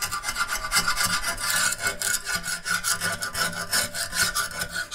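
Rapid back-and-forth hand scraping on a painted steel car frame part, with the lacquer-like coating flaking off.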